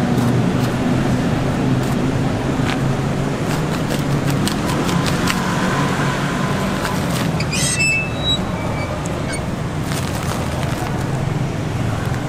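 Steady low engine hum and traffic noise of a busy street, with scattered light clicks and a brief clatter with a short high tone about seven and a half seconds in.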